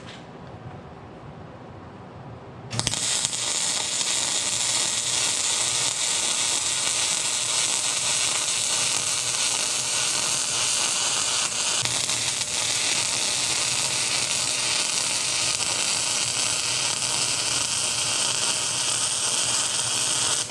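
Wire-feed welder arc crackling steadily while a bead is run on a steel excavator bucket; the arc strikes about three seconds in and cuts off at the very end.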